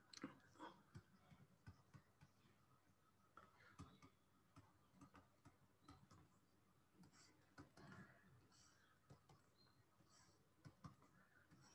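Near silence with faint, irregular clicks and ticks: a stylus tapping and sliding on a writing tablet as handwriting and lines are drawn.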